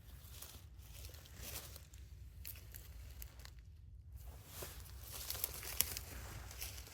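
Slow footsteps rustling and crunching through dry hornbeam leaf litter and brushing past twigs, with a few sharp clicks about five to six seconds in.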